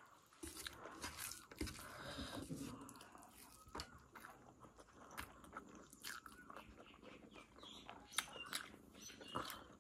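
Faint close-up chewing of jackfruit and pork curry with rice, with many small scattered mouth clicks.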